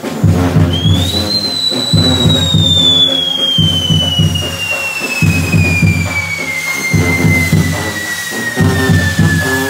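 Band music with drums plays throughout, while a firework on a spinning castillo wheel gives one long whistle from about a second in, rising briefly and then sliding slowly downward in pitch.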